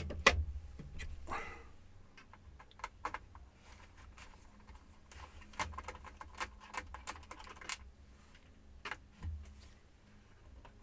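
Irregular clicks and taps of a laptop's plastic case and parts being handled and worked at during disassembly, with the sharpest knocks in the first second.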